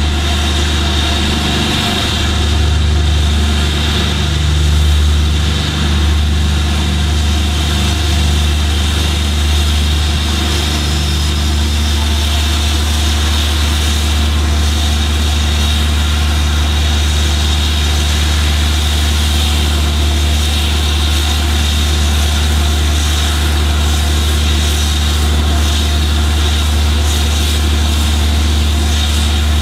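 BR Standard Class 7 steam locomotive 70000 'Britannia' hauling its train slowly: a loud, steady low rumble with a constant hiss above it, with no distinct exhaust beats.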